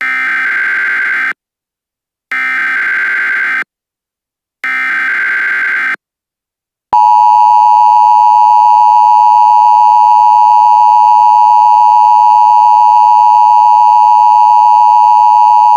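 Emergency Alert System tones: three short buzzy bursts of the SAME data header, then a long, loud, steady two-tone attention signal starting about seven seconds in.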